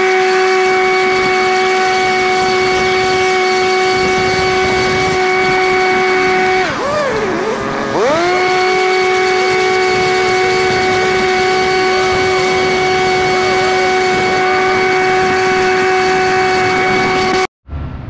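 A small engine running at high, steady revs with a clean whine. About seven seconds in, its pitch sags for a second or so and then climbs back to the same speed.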